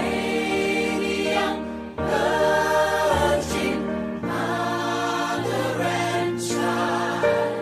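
Choir singing a slow Christmas piece over a sustained accompaniment, in long held phrases of about two seconds each.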